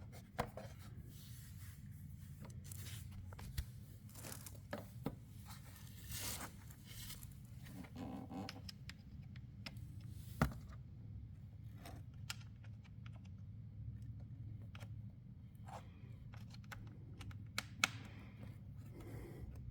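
Small hand screwdriver working tiny screws out of a plastic battery cover: scattered light clicks and short scrapes over a low steady hum.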